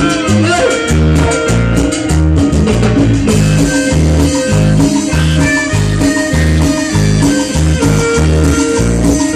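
Band music, mostly instrumental, with a bass line pulsing on a steady beat under guitar and other instruments.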